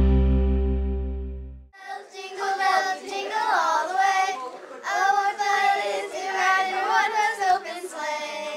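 A held piano chord with a deep bass note rings out and stops about a second and a half in. Then a group of young girls sing together without accompaniment.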